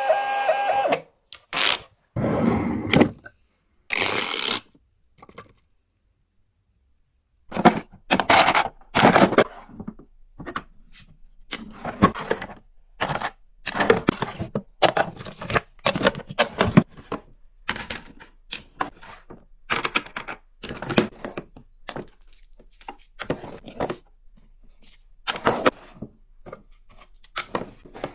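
Packing an order by hand: packaging handled in a run of short rustles, taps and thunks, with a brief machine tone at the very start. There is a gap of silence about six seconds in, and after it the handling sounds come thick and fast.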